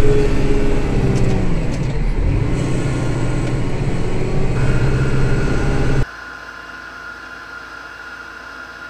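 Kubota tractor's diesel engine running, its pitch dipping briefly about two seconds in and then holding steady. It cuts off suddenly about six seconds in, leaving a faint steady hiss with a thin whine.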